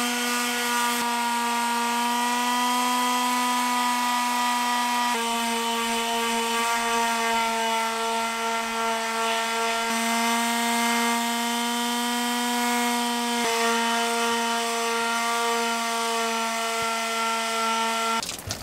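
Corded electric sander running steadily as it sands a fiberglass- and epoxy-coated wooden canoe paddle, its motor pitch shifting slightly a few times as it is worked along the wood. It switches off near the end.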